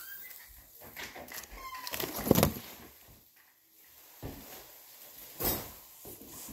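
A potted fern being carried and set down: leafy fronds rustling, with a heavy thump about two seconds in and another knock about five and a half seconds in. A few short, high squeaks sound near the start.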